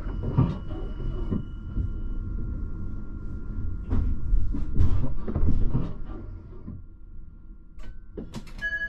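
RandstadRail tram standing at a stop: a low rumble and a steady electrical hum, with irregular knocks and clunks. Near the end a steady pitched warning tone starts, the signal that the doors are about to close.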